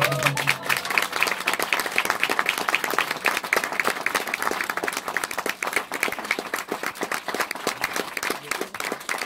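Audience applauding: many hands clapping at an even pace.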